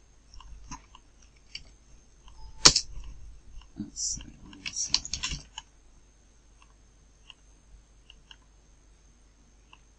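Computer keyboard keystrokes and mouse clicks: a run of clicks over the first half, the loudest about three seconds in, then only a few faint ticks.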